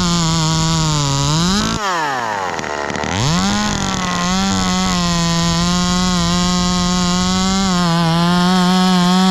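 Ported Echo 2511T top-handle two-stroke chainsaw cutting into a pine under steady throttle, making a face cut. About two seconds in the engine note falls sharply as the throttle comes off, then revs back up a second later and runs on steadily through the cut.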